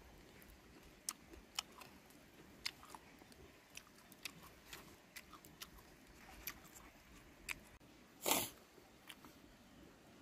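Close-up eating sounds: a mouth chewing food, with irregular sharp clicks and smacks and one louder, longer noisy burst about eight seconds in.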